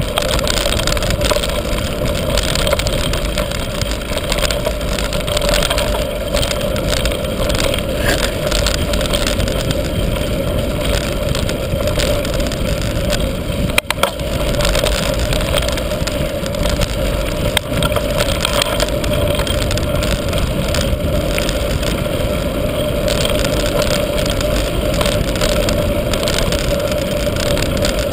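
Mountain bike rolling fast down a dirt and gravel trail: a steady rush of wind buffeting the camera's microphone mixed with tyre noise and rattle of the bike. A sharp knock from a bump comes about 14 seconds in, and another a few seconds later.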